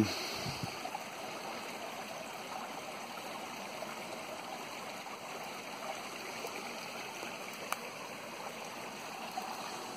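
Steady rushing of running water, even throughout, with one faint click about eight seconds in.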